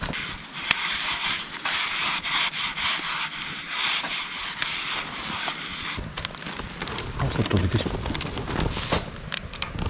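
Wood fire crackling in a fire stand, with a steady hiss and scattered sharp pops.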